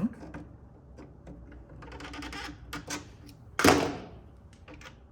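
Clicks and taps of metal parts being handled and fitted, with one loud thunk about three and a half seconds in.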